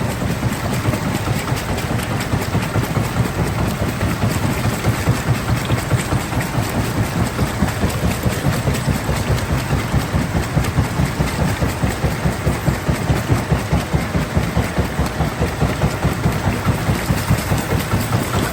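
Heavy stone-crushing machinery running steadily, with a deep engine-like rumble that pulses evenly about five times a second over a constant grinding noise.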